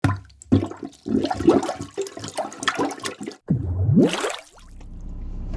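Intro sound effects of water flushing and gushing in irregular surges, then one rising whoosh about three and a half seconds in. A low steady rumble starts near the end.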